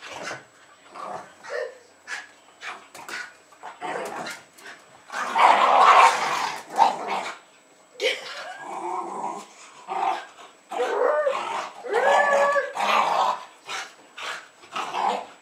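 Jack Russell terriers barking in a frantic run of short, sharp barks in an excited greeting. The barking is loudest and most continuous about five to seven seconds in.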